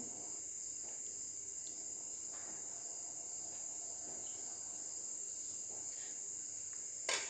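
Crickets chirring faintly in a continuous, steady high-pitched drone.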